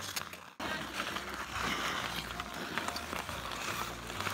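Pond hockey on outdoor ice: skates scraping across the ice and sticks clacking on the puck now and then, over a steady hiss. It starts about half a second in.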